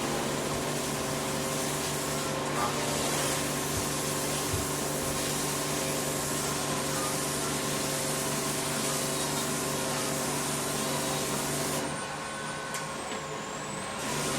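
A motor running steadily with a constant hum and a broad hiss, dropping in level for about two seconds near the end.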